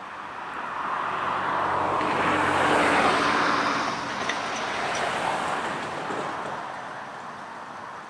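A vehicle's engine and running noise swell to a peak about three seconds in, then fade away, like a vehicle passing by.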